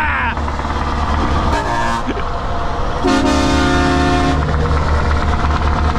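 Truck horn sounding twice, a short toot and then a steady blast of about a second and a half, over the steady drone of the lorry's diesel engine heard from inside the cab.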